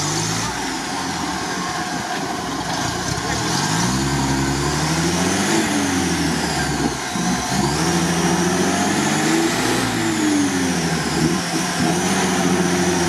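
UAZ-469 engine revving up and falling back several times as it strains to pull the truck out of deep mud.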